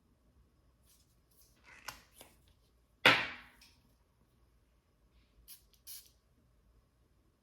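Small clicks from handling a perfume travel spray, then one sudden spritz of the spray about three seconds in, followed later by two more light clicks.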